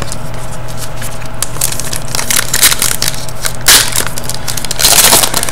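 Trading cards being handled in the hands: cards slid and flicked through a stack, giving a run of crisp clicks and rustling snaps, busiest near the middle and end.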